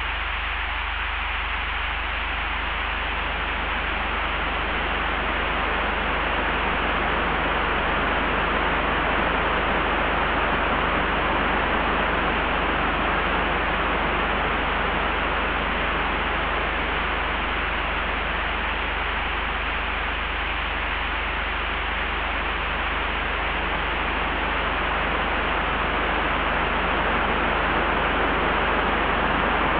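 Layered wind ambience: a steady rush of wind over a constant low rumble, swelling gently a few seconds in, easing around the middle and building again near the end.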